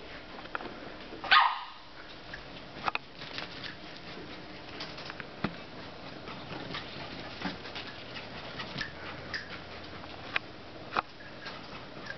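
A small dog barks once, sharply, about a second in. Scattered faint clicks and taps follow.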